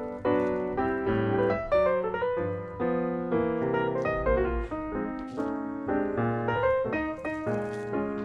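Background music: a light piano melody with a steady rhythm of short, decaying notes.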